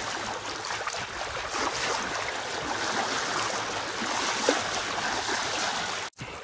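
Water rushing and splashing along the hull of a sailboat under way, a steady hiss. It breaks off for a moment near the end.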